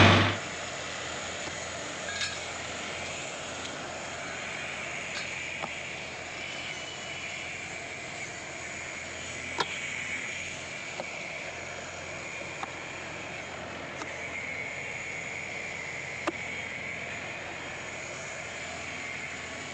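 Steady outdoor background noise: a low hum under a continuous, even high-pitched buzz, with a few scattered sharp clicks. It opens with a short loud burst.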